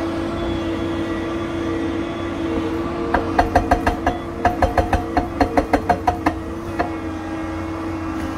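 Doosan crawler excavator's diesel engine running steadily with a humming tone. About three seconds in, its hydraulic rock breaker hammers on the rock face in a rapid run of sharp blows, about five or six a second, pausing briefly twice. It stops after about three seconds, with one last blow shortly after.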